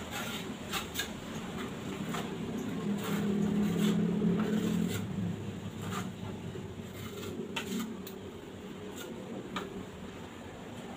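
A tiling trowel and tile scraping and clicking as mortar is spread on a narrow tile strip, in scattered short knocks. Under them a low hum swells a couple of seconds in and fades after about five seconds.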